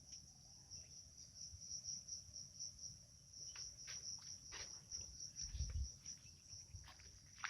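Insects chirping in a steady, high, pulsing trill, with scattered light clicks and a low thump about two-thirds of the way through.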